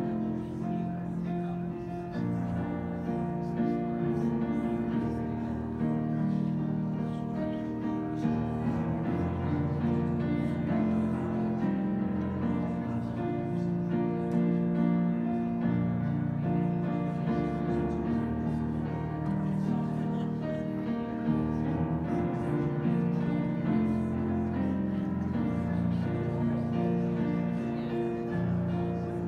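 Slow instrumental piano music with long held chords.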